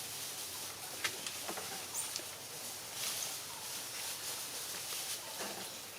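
Outdoor ambience: a steady high hiss with a few faint clicks, a brief high chirp about two seconds in and a short animal call about five and a half seconds in.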